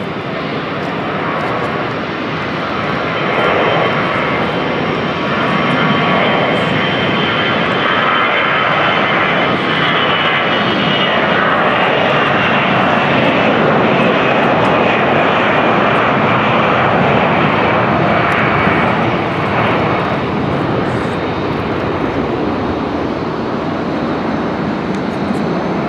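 Twin turbofan engines of an Airbus A320-family airliner at takeoff thrust during the takeoff roll and climb-out: a loud, steady jet roar that builds over the first few seconds, with a high whine that slowly falls in pitch through the middle.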